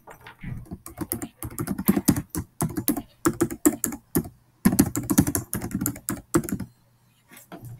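Typing on a computer keyboard: a quick run of keystrokes, with a short pause a little after four seconds in, then a few last taps near the end.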